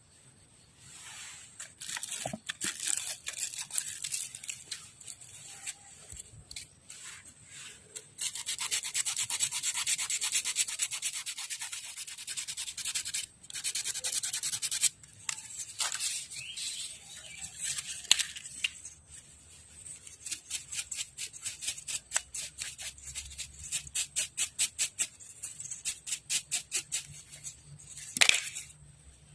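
Hand abrading of a homemade fishing float: quick, rhythmic scraping strokes in runs with short pauses, ending with a sharp knock near the end.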